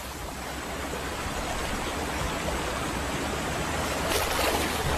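River water splashing and churning as a crocodile holds a wildebeest under to drown it: a steady rush of water that grows a little louder, with a few sharper splashes about four seconds in.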